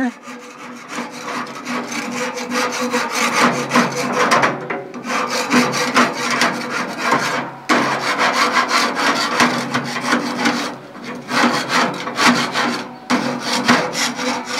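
Grill grate in a charcoal smoker's side firebox being scraped clean of charred residue: quick rough scraping strokes in runs, broken by three short pauses.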